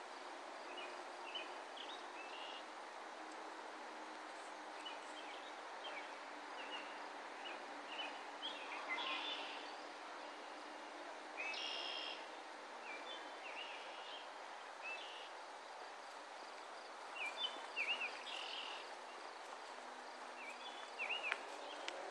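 Steady outdoor background noise with small birds chirping now and then in short calls, a little louder in a few spots through the middle and near the end.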